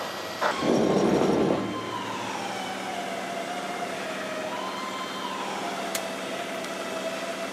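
A siren wailing, its pitch slowly falling and rising again about every three seconds. It comes after a loud rush of noise that starts about half a second in and lasts about a second.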